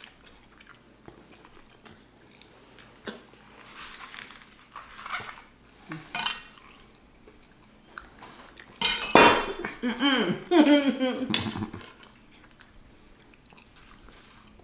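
Cutlery clinking and scraping on a plate, with chewing, as a meal is eaten. About nine seconds in comes a louder stretch of a pitched sound that wavers and falls in pitch for two or three seconds.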